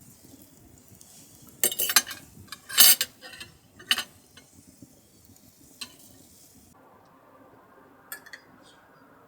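Dishes and cutlery clattering: a quick run of clinks and scrapes in the first half, then a few lighter knocks.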